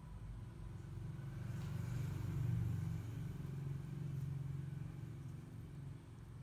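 A low rumble that swells to its loudest about two and a half seconds in and then slowly fades.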